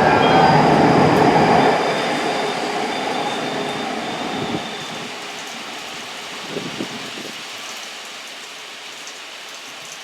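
Electric train running along the track and moving away, its wheel and running noise fading steadily over several seconds. A few high steady whining tones in the first seconds die out as it goes.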